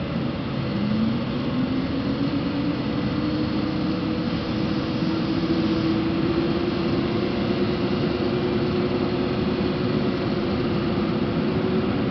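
ET42 electric locomotive hauling a train of tank wagons, approaching slowly with a steady mechanical hum and rumble. A whine from its traction drive rises in pitch from about a second in, then holds steady as the locomotive draws closer.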